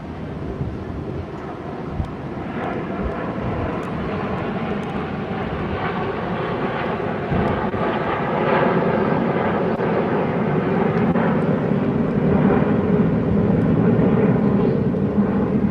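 Red Arrows' BAE Hawk jets flying past, their jet noise growing steadily louder.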